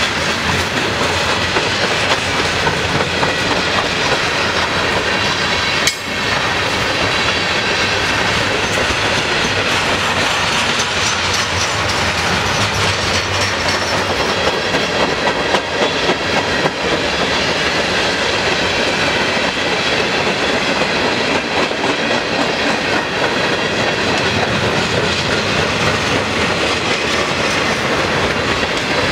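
Freight cars of a long mixed freight train (hoppers, tank cars, boxcars) rolling steadily past at track side, steel wheels running over the rails.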